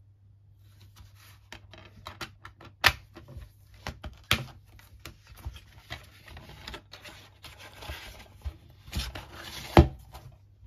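A DVD, its plastic case and cardboard slipcover being handled: scattered clicks and rubbing, sliding noises, with a few sharp clicks, the loudest near the end.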